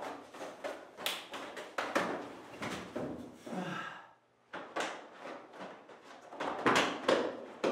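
Quick slaps and thuds of hand strikes landing on a partner's body and karate uniform, in fast flurries, with a short break about four seconds in.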